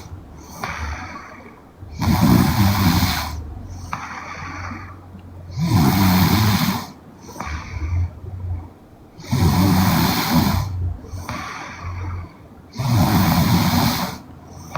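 A young woman snoring in her sleep: four loud rasping snores about every three and a half seconds, with a softer breath between each.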